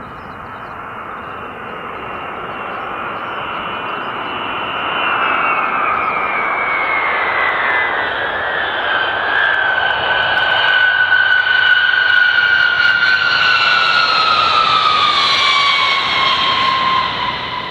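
A B-52H Stratofortress's eight turbofan engines whining and rushing as the bomber comes in to land and passes by. The high whine glides slowly down in pitch as the sound swells, then fades near the end.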